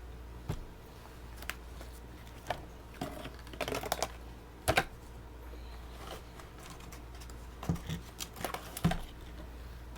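Irregular light clicks and knocks of soda drinks being handled and set down on a table: single taps about a second apart at first, then small clusters, with one sharper knock near the middle.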